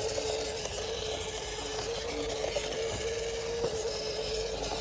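Radio-controlled off-road car's motor and gears whining steadily at one pitch as it drives up a rutted slope under load, the pitch stepping slightly now and then.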